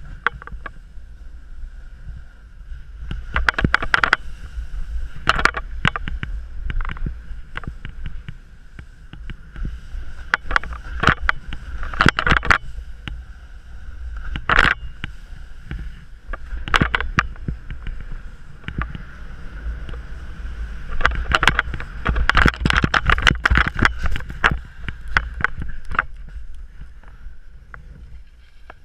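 Snowboard sliding over wind-crusted snow, its edge scraping in repeated bursts with each turn, thickest about three-quarters of the way through. A steady low rumble of wind on the microphone runs underneath.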